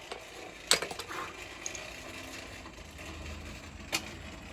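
Two sharp metallic clinks about three seconds apart, with a few lighter taps between, over a faint low hum: the forged knife blade and tools being handled at the anvil while the blade is checked, not steady hammering.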